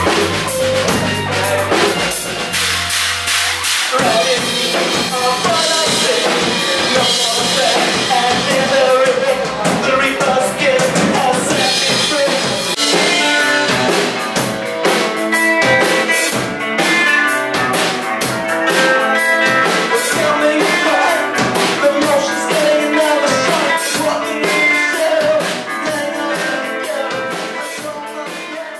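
Alternative rock music with a drum kit and guitar, fading out over the last few seconds.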